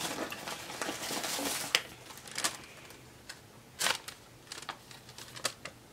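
Paper rustling and crinkling as letters are rummaged through in a box and one is picked out and opened: a busy rustle in the first two seconds, then scattered crackles with a sharper rustle about four seconds in.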